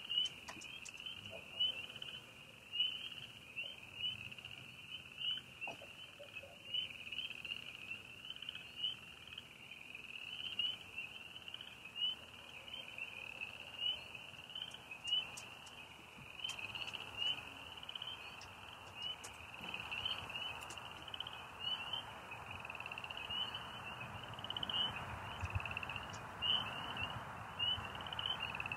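A night chorus of frogs and crickets: steady, high-pitched pulsing trills from many overlapping callers, repeating about once a second.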